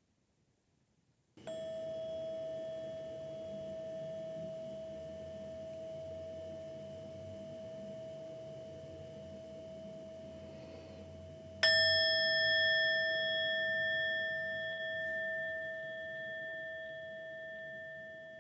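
Meditation bell struck twice, about ten seconds apart, each a long ringing tone with higher overtones that slowly fades; the second strike is louder. The bell marks the end of the sitting meditation.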